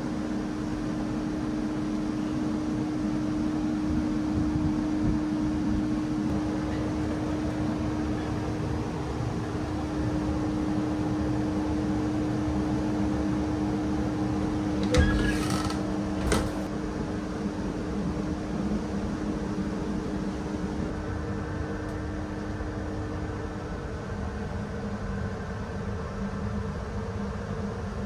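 Steady hum of ventilation in a sleeper-train toilet compartment over the low rumble of the running train, with two short knocks about halfway through. The hum fades near the end.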